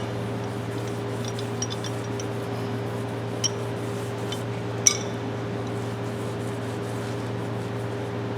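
Steel adjustable wrenches being handled on a workbench: a few light clicks, then two sharper metal clinks, one about three and a half seconds in and one about five seconds in. A steady low machine hum runs underneath.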